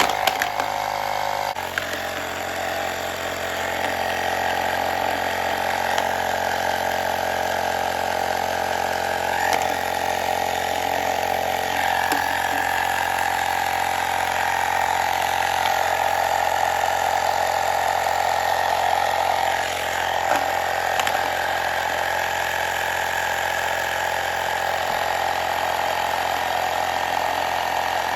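Electric tire inflator pump running steadily, inflating a tube-type tire toward a preset 32 psi to seat the bead, then cutting off abruptly at the end.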